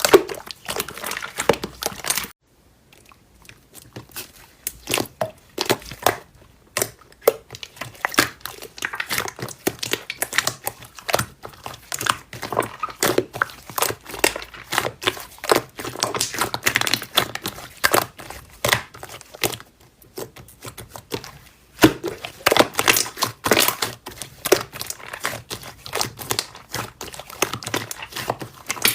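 Slime being squished and pressed by hand, making a dense run of crackling clicks and pops, with a short lull a couple of seconds in and another around twenty seconds in.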